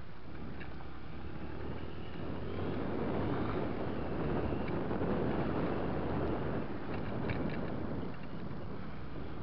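Off-road motorcycle riding a rocky dirt track: its engine hums steadily under heavy wind noise on the microphone, which swells louder through the middle.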